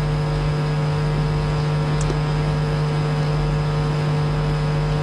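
Steady low electrical hum with several overtones. A faint tick about two seconds in.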